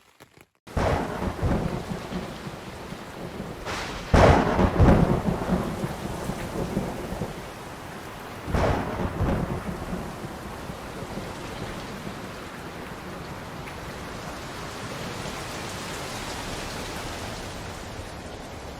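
Thunderstorm: steady rain with two loud thunder rumbles, the first about four seconds in and the second about eight and a half seconds in, then an even patter of rain.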